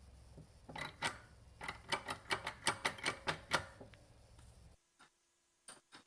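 Cast-iron bench vise's quick-release mechanism working: a run of about ten sharp metal clicks, roughly five a second, as the movable jaw is slid quickly along its screw, over a low rumble of handling.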